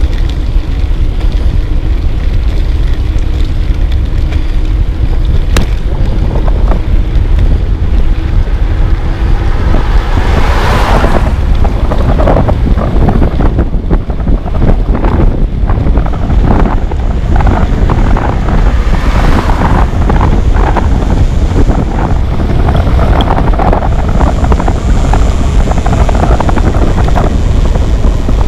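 Wind buffeting the microphone of a camera carried on a bicycle riding through rain: a loud, steady rumble. Twice a louder hiss swells up and fades, once about a third of the way in and once about two thirds in.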